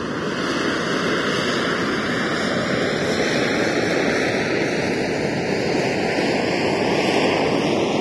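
Harrier jump jet's Rolls-Royce Pegasus vectored-thrust engine running at hover thrust as the jet hangs low in jet-borne flight. It is a steady, rushing roar with a slow rising phasing sweep, and it grows slightly louder toward the end.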